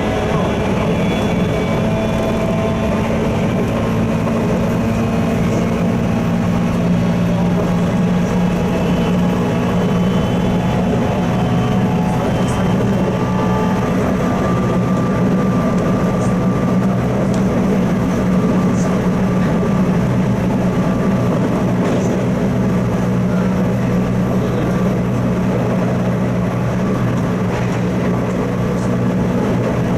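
JR East 719 series electric train running, its thyristor-controlled separately excited DC commutator traction motors and gearing giving a steady low hum with fainter higher tones above it.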